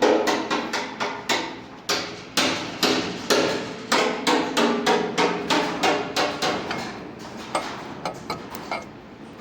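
A hammer striking metal repeatedly, about two blows a second, each blow ringing briefly. The blows grow weaker over the last couple of seconds.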